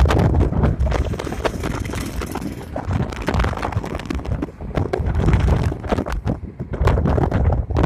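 Wind buffeting the microphone: a loud, uneven, gusty rumble.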